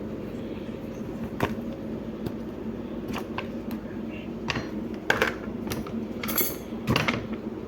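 Scattered clicks, taps and a short rattle of small hard plastic and metal parts being handled while a keyboard case is taken apart for a battery change, over a steady low hum.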